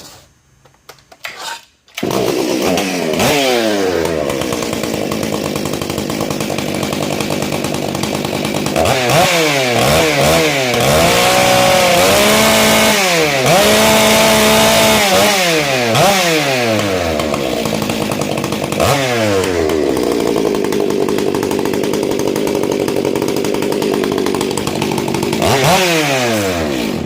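Modified Stihl MS 661 C two-stroke chainsaw with a buckshot muffler firing up about two seconds in, then revved up and down repeatedly, held at high revs for a few seconds in the middle, settling to a steadier speed, and cut off at the end.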